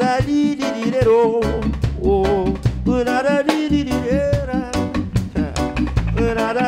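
Live reggae band playing an instrumental passage: electric guitars and keyboard over a steady beat with a low bass line, and a wavering melodic lead on top.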